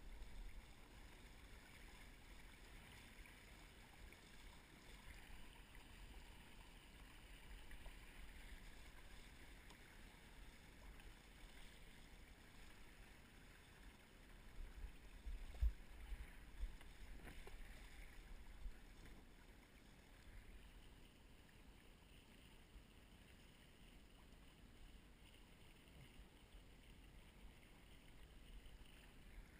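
Faint wash of water along a windsurf board under sail, with low wind rumble on the microphone that builds into a cluster of thumps about halfway through.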